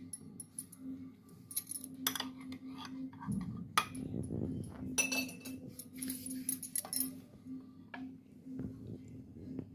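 A metal spoon clinking and tapping against a drinking glass of hot water, stirring in a spoonful of honey mix; a run of irregular clinks, busiest in the middle.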